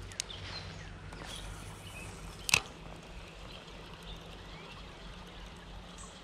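Shimano Ultegra 1000 spinning reel being cranked to retrieve a spinner: a faint steady whir from the turning reel, with one sharp click about two and a half seconds in. Light creek-water hiss behind it.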